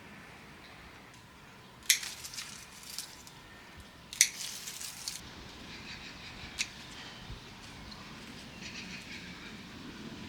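Two sharp clicks about two seconds apart, each followed by a short clatter of lighter clicks, and a single click a little later, with faint bird chirps in the background.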